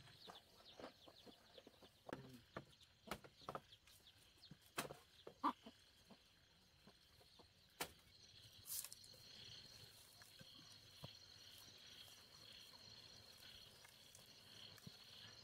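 Scattered light clicks and knocks of split bamboo strips being handled and laid into a woven panel, thickest in the first half. After that a faint steady high whine runs on.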